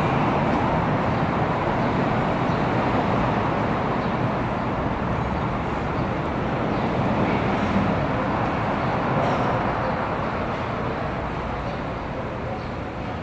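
Street traffic: a steady, dense noise of passing vehicles that eases off gradually toward the end.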